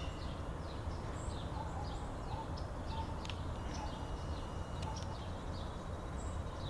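Small songbirds chirping repeatedly in short high calls, several a second, over a steady low background rumble.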